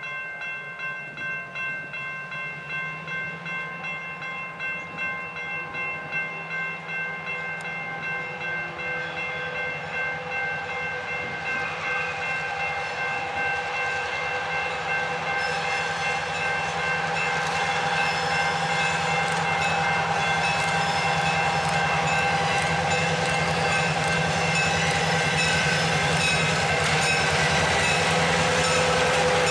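EMD GP9 diesel locomotives approaching, their engines growing steadily louder. A bell rings at a steady beat throughout, and the horn sounds as the train draws near.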